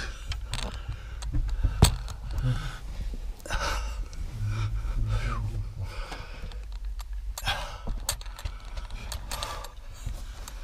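Someone picking their way over loose stone rubble in a narrow tunnel: scraping and shifting rock, rustling, and heavy breathing, with one sharp knock about two seconds in.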